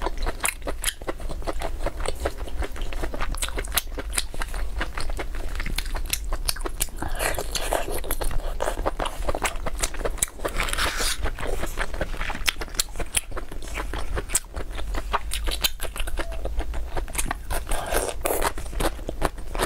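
Close-miked eating of boneless chicken feet: biting and chewing with a dense run of small sticky clicks and crunches, a little louder in a few stretches.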